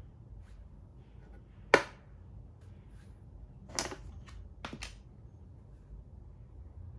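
Makruk (Thai chess) pieces being picked up and set down on the board by hand, making sharp clicks. One loud click comes about two seconds in, then a quicker run of clicks and taps between four and five seconds.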